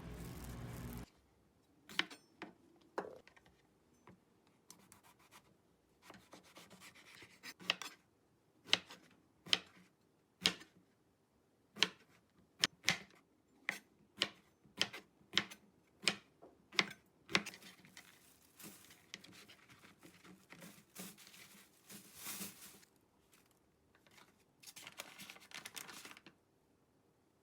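A steady sound cuts off about a second in. After that come a series of sharp taps and knocks, roughly one or two a second through the middle, with scraping and rustling between them, like hands working with utensils or objects on a hard surface.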